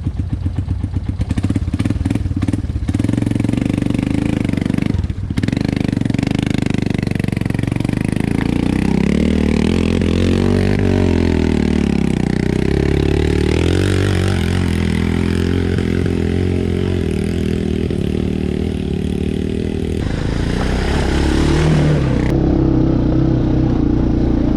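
ATV engine running under load, its pitch rising and falling as the throttle is worked over rough trail, with some clattering in the first few seconds.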